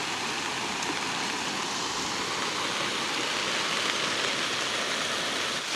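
Muddy floodwater rushing and churning over a culvert broken by the rain, a steady wash of water noise.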